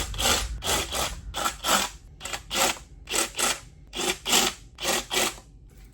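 Step drill bit deburring freshly drilled holes: a run of short rasping scrapes, often in pairs, about two to three a second, that stops just before the end.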